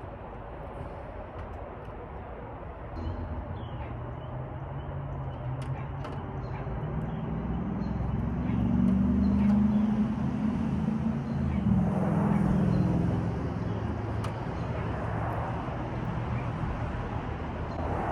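A motor vehicle's engine droning, growing louder to a peak around the middle and then easing off, with a few faint clicks over it.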